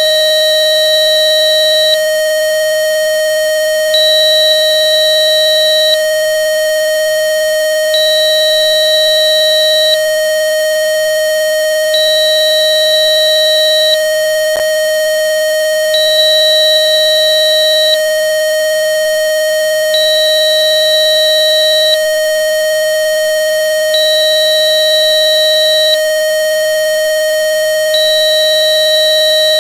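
Synthesized frequency-therapy tone: a steady pure electronic tone of about 610 to 620 hertz, with fainter steady high tones above it. A higher beep sounds two seconds on, two seconds off, and there is a brief click about halfway through.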